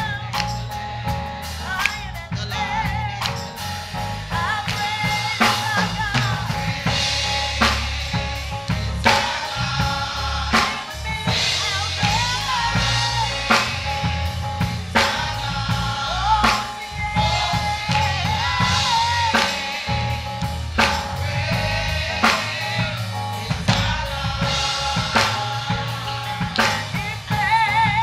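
Gospel choir singing with live band accompaniment: drum kit with snare and bass drum keeping a steady beat.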